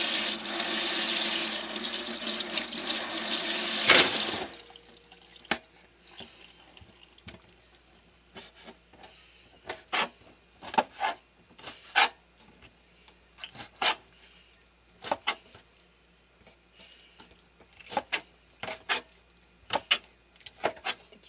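Tap water runs for about four seconds and stops suddenly. A kitchen knife then chops squid tentacles on a cutting board: a string of sharp, irregular knocks of the blade striking the board.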